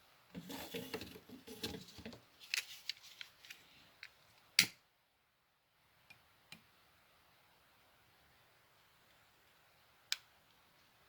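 Rustling and handling of small objects for about two seconds, then a run of light clicks and taps, with one sharp click a little over four seconds in and a few faint ticks after.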